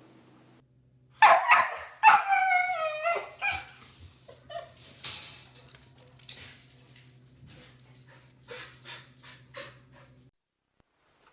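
A dog yelping and whining: a loud run of pitched cries starting about a second in, then quieter short yips and clicks that stop suddenly near the end.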